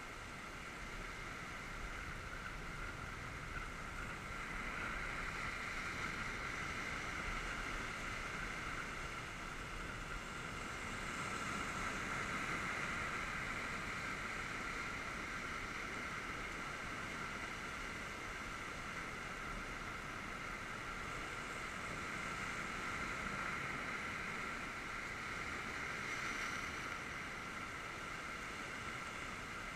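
Sea waves surging and breaking against rocks: a steady rushing that swells and eases every few seconds.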